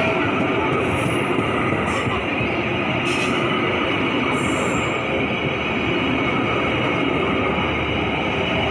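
Passenger train coaches rolling past at close range: a steady rumble of steel wheels on the rails, with a few brief high-pitched squeals in the first half.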